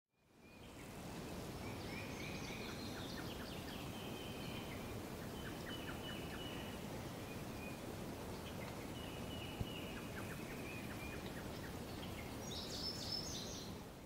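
Outdoor nature ambience: birds calling in short repeated phrases over a steady background hiss, fading in at the start and out at the end, with one small tick about two-thirds of the way through.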